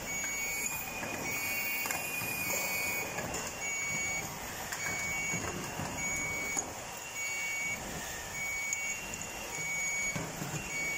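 An electronic beeper sounding in a steady repeating pattern, short high beeps a little under one a second, over a low background rumble.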